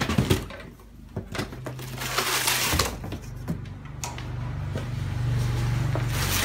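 Unpacking noise: cardboard box flaps and packing rustling and bumping as a heavy metal cut-off saw is lifted out of its box and set down on the floor, with a cluster of knocks at the start.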